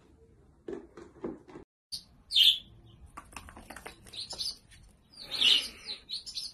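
A chick peeping in loud, high chirps, the loudest about two and a half and five and a half seconds in, with smaller peeps between. A few soft knocks come before the first peep.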